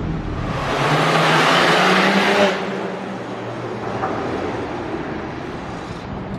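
BMW 335i's N54 twin-turbo straight-six running: revved once about a second in, louder and slightly higher for nearly two seconds, then dropping back to idle.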